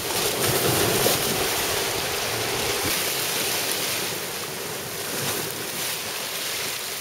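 Sea surf breaking and washing over rocks just below, a continuous rushing hiss that is loudest about a second in. Wind is buffeting the microphone.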